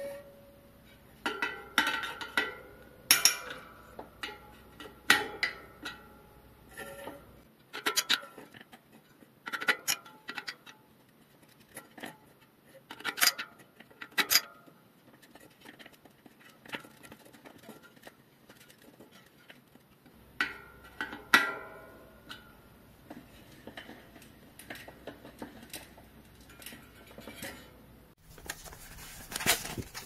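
Irregular metal clinks and knocks, some ringing briefly, from tools and bicycle parts being handled and set down.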